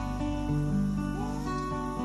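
Background music: a gentle acoustic guitar track with held notes.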